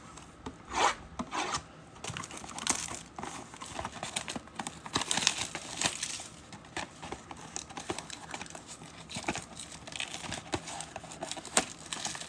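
Plastic shrink-wrap and cardboard crinkling, rubbing and tearing as a trading-card blaster box is worked open, a box that resists opening. The crackling runs as a busy, irregular patter of small snaps from about two seconds in.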